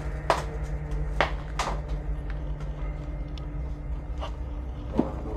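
Footsteps and a few sharp knocks as people walk through a concrete bunker corridor, over a steady low rumble.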